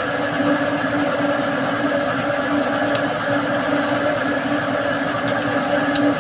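Mitsubishi Adventure's diesel engine running steadily at idle, with an even, unchanging tone.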